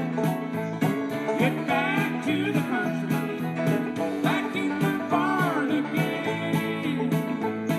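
Country music soundtrack, instrumental, with plucked guitar over a steady beat and a lead line that slides up and down in pitch.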